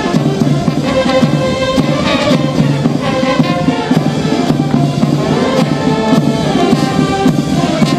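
Military band playing, brass instruments with drums keeping the beat.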